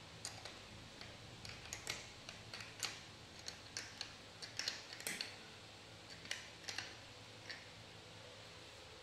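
Steel open-end spanner clicking against the nut and washer of a CNC router hold-down clamp as the nut is tightened by hand: a run of irregular light clicks, busiest in the middle, that stops about a second before the end.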